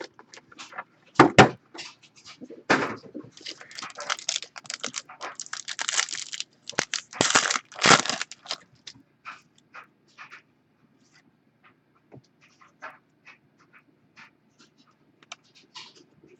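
Foil trading-card pack wrappers being torn open and crinkled, in loud rustling bursts for about eight seconds. Then come quieter scattered clicks and slides as the cards are handled.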